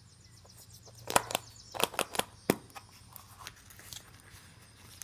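A shiny foil-wrapped surprise egg being unwrapped and opened by hand: a run of sharp clicks and crinkles, loudest between about one and three seconds in.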